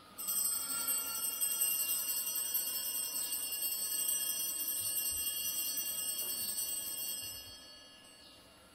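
Altar bells rung at the elevation of the chalice after the words of consecration, a high, continuous ringing of several bells at once that holds for about seven seconds and then dies away.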